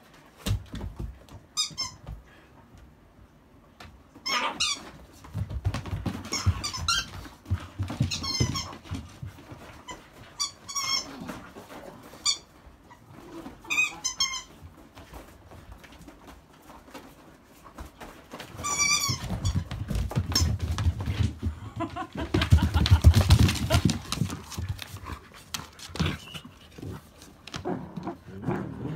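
Akita dogs playing: repeated short, high-pitched squeaks, with scuffling paws and bumps on the floor that grow loudest in the second half.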